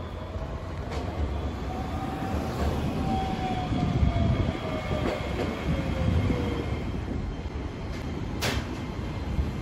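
Iyotetsu 5000-series tram running past on its street track: a low rumble with a long drawn-out tone that rises slightly and then falls away. There is a sharp click near the end.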